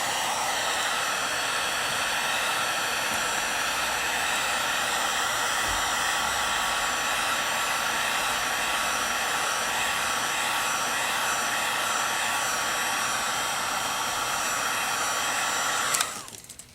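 Hand-held hair dryer running steadily, blowing hot air to dry a fresh coat of leather dye, then switched off suddenly about sixteen seconds in.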